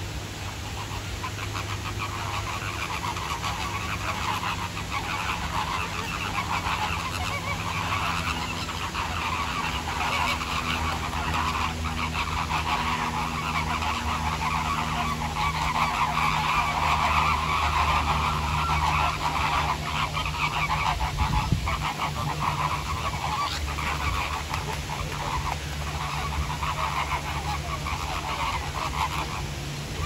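A large flock of American flamingos honking and gabbling continuously in a dense, overlapping chorus that swells about halfway through. A low steady hum runs underneath.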